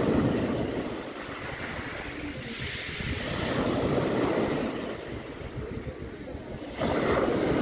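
Surf breaking and washing up over a pebble beach. It comes in three surges: one at the start, one about three seconds in, and a sudden one near the end.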